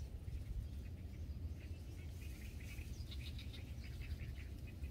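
Quiet outdoor pond-side ambience: a small bird chirping in quick runs of short high notes about a second and a half in and again around three seconds, over a low steady rumble.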